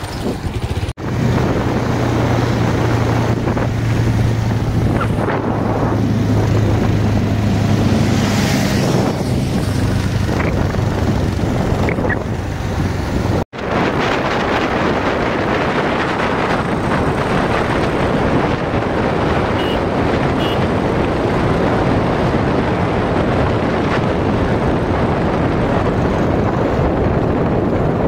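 Wind rushing over the microphone on a moving motorcycle at road speed, with the motorcycle's engine humming steadily underneath for the first ten seconds or so. The sound drops out for an instant twice, about a second in and again near the middle.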